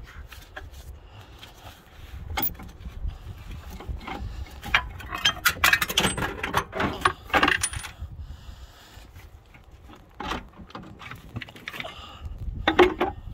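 Irregular metallic clinks, taps and rattles of a hand wrench working the Jake brake housing bolts on a Caterpillar 3406 cylinder head. The clinks are thickest around the middle, with another short flurry near the end.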